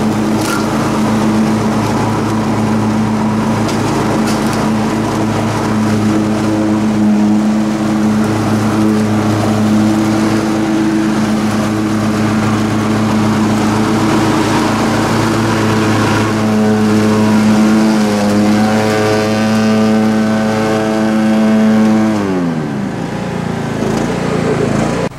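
Cub Cadet XT1 Enduro lawn tractor engine running steadily at working speed while mulching leaves on a lawn. Near the end its pitch falls steeply as the engine winds down.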